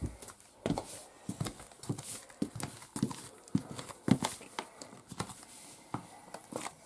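Soft, irregular knocks and taps, about two a second, from the person filming moving about and handling the camera.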